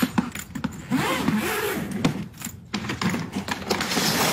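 A black hard-shell suitcase being opened on a counter: its zipper pulled round in several noisy strokes, with short pauses between them.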